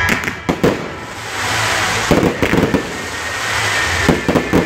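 Fireworks going off: a few sharp bangs in the first second, a cluster of crackling bangs about two seconds in, and another cluster near the end.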